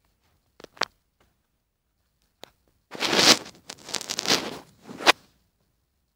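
Plastic bags crinkling and rustling for about two seconds, after a few short handling knocks, ending in a sharp crackle.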